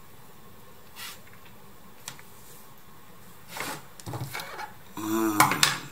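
Tabletop handling noises: a couple of faint clicks, then a cluster of knocks and rustles in the last two seconds, with a short pitched sound among them.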